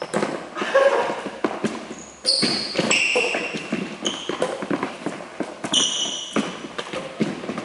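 Badminton rally on a wooden sports-hall floor: rackets hitting the shuttlecock, footfalls thudding on the boards, and several short high squeaks of court shoes as the players move.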